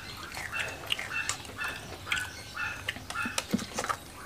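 A dog barking in a rapid string of short yaps, about two or three a second, over crunchy chewing of crispy fried food.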